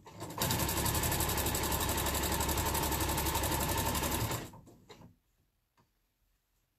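Electronic domestic sewing machine running at a steady fast speed, a rapid even rattle of stitches as it sews a seam joining strips of quilt squares. It starts about half a second in and stops about four and a half seconds in.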